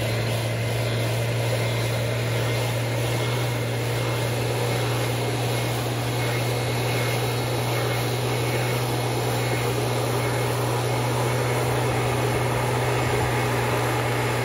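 Husqvarna 150BT backpack leaf blower's two-stroke engine running at a steady high speed, with the rush of air from its nozzle blowing across the leaves.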